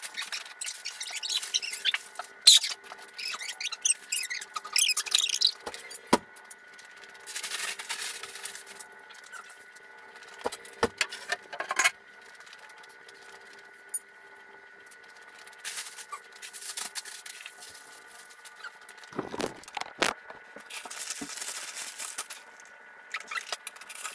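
Brown packing paper rustling and crinkling in bursts as it is pulled out of a wooden shipping crate, with a few sharp knocks and squeaks of the crate's wood being handled. A faint steady hum runs underneath.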